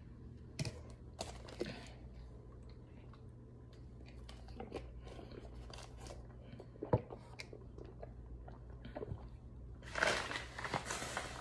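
A person chewing a mouthful of crunchy chalk, with faint scattered crunches and clicks, one sharper crunch, and a louder run of crunching about ten seconds in.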